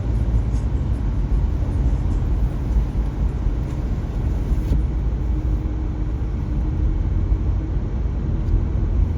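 Steady low rumble of a car in motion: road and engine noise. A faint steady hum joins about halfway through.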